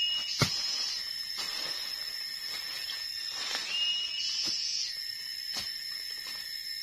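Machete chopping into brush and leaf-littered soil: about five dull strokes roughly a second apart, the loudest about half a second in. Underneath runs a steady high drone of forest insects, and a short rising whistled call sounds twice.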